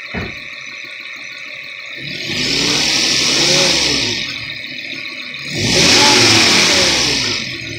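Volvo S60's five-cylinder engine revving up and dropping back, twice, each rise and fall lasting about two seconds.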